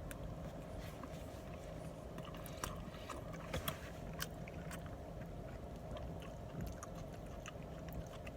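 Eating sounds: chewing, with scattered sharp clicks and scrapes, the loudest a few seconds in, over a steady low hum.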